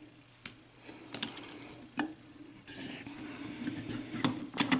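Lock picks and a freshly picked Sargent mortise cylinder lock being handled: scattered light metal clicks and clinks, then a stretch of scraping from about three seconds in, with a couple of sharper clicks near the end.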